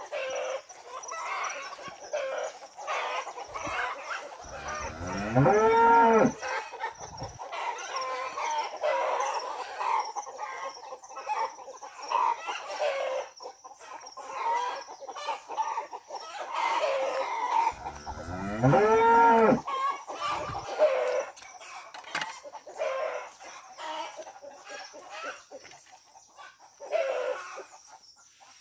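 A cow mooing twice, two long low calls rising and falling in pitch about 13 seconds apart, over hens clucking throughout.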